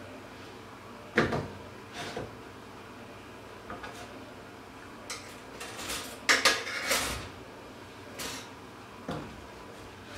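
Scattered knocks, clicks and clatters of kitchen handling around a pop-up toaster and a wooden cutting board as toast is taken out and set down, with the loudest clatter about six seconds in.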